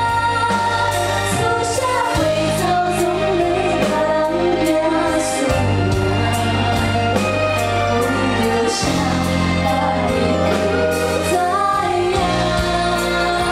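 Two women singing a ballad in harmony over band accompaniment with sustained bass notes.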